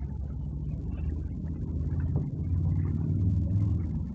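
A vehicle engine running with a steady low rumble that grows a little louder about two seconds in.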